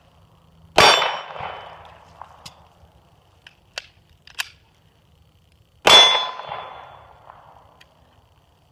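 Two 9mm pistol shots from an H&K P30L about five seconds apart, each followed by the ringing of struck steel targets. Between the shots, a few light clicks and clacks of the magazine change.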